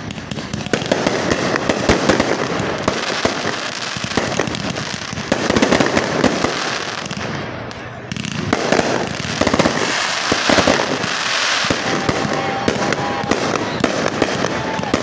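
Ground-launched fireworks going off close by: a dense, continuous stream of crackles, pops and bangs as stars are fired into the air, loudest in clusters with a short lull about eight seconds in.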